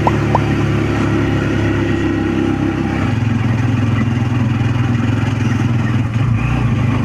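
Motor vehicle engine running steadily while driving, heard from inside the cab, its engine note dropping to a different pitch about three seconds in.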